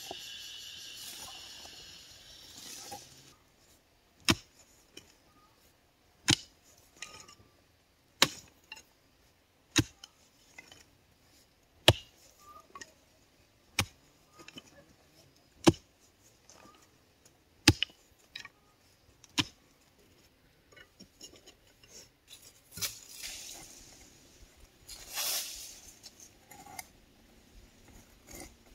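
A high buzzing fades out over the first few seconds. Then about nine sharp knocks come at an even pace, roughly one every two seconds, like repeated blows of a tool. Softer rustling follows near the end.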